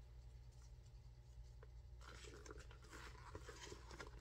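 Near silence with a low steady hum; from about two seconds in, faint rustling and a few light taps as a handbag is handled.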